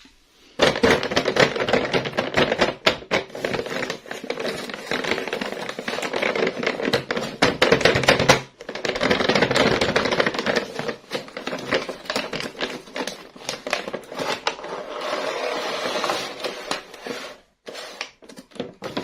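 Plastic toy packaging and toy pieces being handled and unboxed: rapid, irregular crinkling, tapping and clicking, with a brief pause about halfway through.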